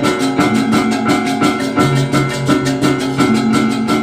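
Balinese baleganjur gamelan playing: rapid, even strikes on bronze gongs and cymbals, about six a second, over deep gong tones that ring on underneath.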